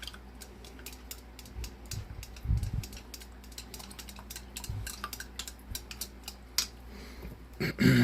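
Stirring snow and glitter into the water of a glass snow globe: quick light clicks and taps of the stirrer against the glass, with a few dull knocks and a louder clatter near the end.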